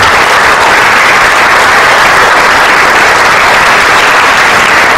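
Audience applauding steadily for a newly drafted player.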